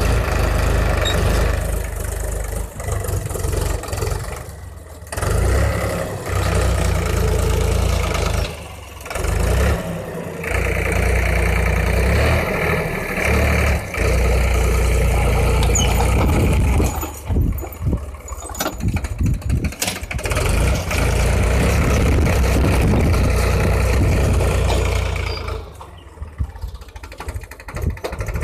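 Powertrac 439 DS Plus tractor's diesel engine running under load while ploughing, a steady low rumble that drops away briefly several times.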